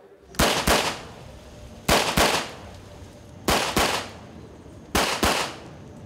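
Semi-automatic pistol fired in quick double shots, four pairs about a second and a half apart, each shot sharp and followed by a short echo.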